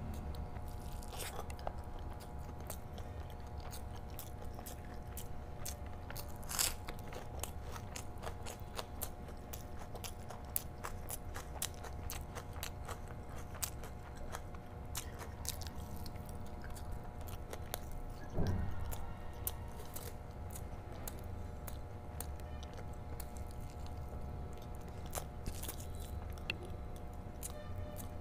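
Close-miked chewing of mouthfuls of rice and curry eaten by hand: wet mouth sounds with frequent small clicks and a few louder smacks, over a faint steady hum.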